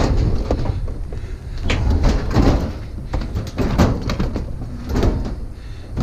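A heavy metal appliance being shoved and slid into place, scraping along with repeated knocks and bangs every second or so.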